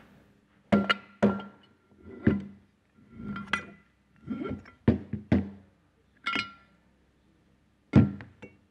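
Metal pump parts, the shaft with its ball bearing, the bearing cover and the cast bearing house of a DESMI Modular S centrifugal pump, knocking and clinking against each other and the bench as they are pulled apart and set down. About ten separate clanks, each ringing briefly, the loudest near the end.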